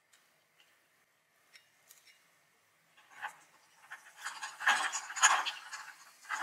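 Ice cubes clinking and shifting in a glass pitcher of iced drink as a dried orange slice is pushed down among them with plastic tongs. A few faint clicks at first, then from about three seconds in a busy run of clinks and scrapes.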